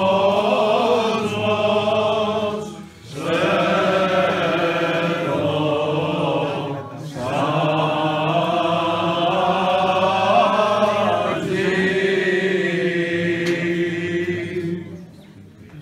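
Greek Orthodox Byzantine chant sung by several male voices, with a steady low held note beneath the melody. The singing pauses briefly about three and seven seconds in and dies away near the end.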